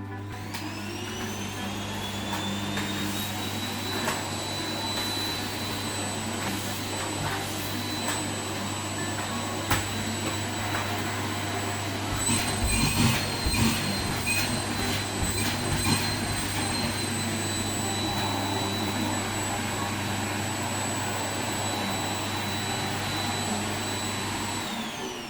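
Vacuum cleaner switched on, its motor whine rising as it spins up, then running steadily, with several knocks and clicks from the nozzle being worked about midway. Near the end it is switched off and the whine falls away as the motor winds down.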